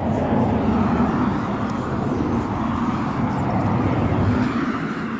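A motor vehicle driving past on the adjacent road, its engine hum and tyre noise swelling and then fading away near the end.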